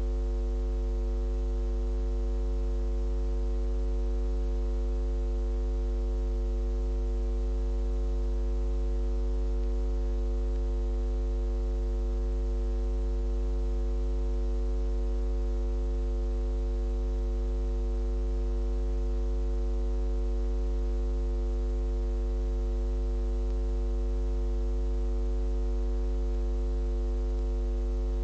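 Steady electrical mains hum: a low drone with a ladder of higher overtones and nothing else, the bare soundtrack of a transferred silent cine film.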